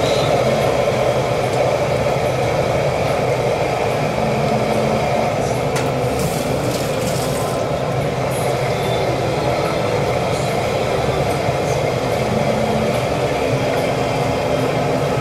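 Steady, loud mechanical roar of kitchen equipment, even and unbroken.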